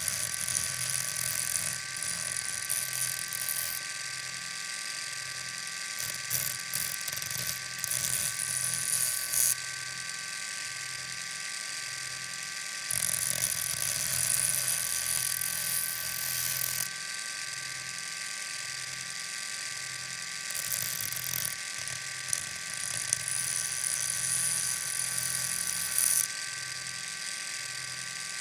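Knife being sharpened on an electric motor. The motor runs with a steady whine, and the blade is pressed to it in four grinding passes of a few seconds each, each bringing a harsh high hiss over the whine.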